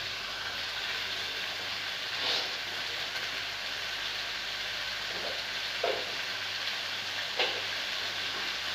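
Chicken drumsticks frying in a pan with butter, a steady sizzling hiss, with a few brief faint sounds on top.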